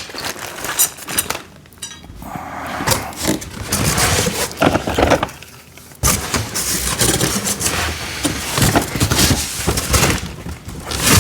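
Cardboard packaging rustling, with knocks, scrapes and clatter as metal rack pieces and storage bins are pulled out of the box and set down.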